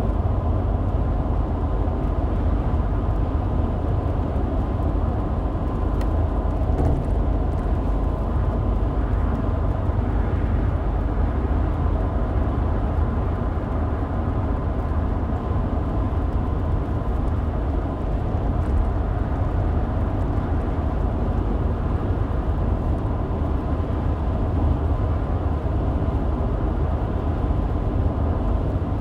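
Car driving along, with a steady low rumble of road and engine noise heard from inside the cabin.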